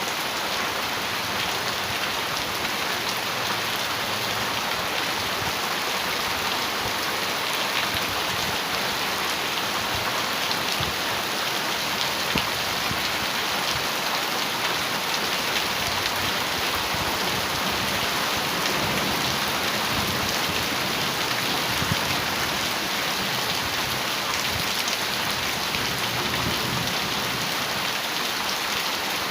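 Heavy rain falling steadily on a metal roof: a dense, even patter sprinkled with many small drop ticks.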